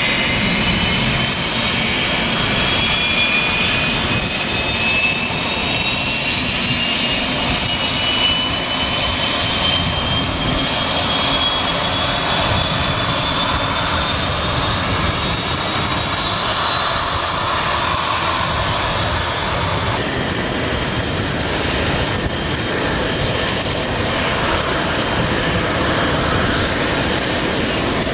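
McDonnell Douglas DC-10 jet engines whining over a steady rumble, the whine rising slowly in pitch as an engine spools up during start while the aircraft is pushed back. About two-thirds through the sound changes suddenly to a steadier high whine.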